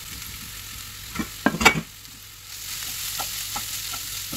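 Shredded chicken and onions frying in a pan, turned with a wooden spoon. A few knocks of the spoon against the pan come about a second and a half in, then a steady sizzle with light taps as the stirring goes on.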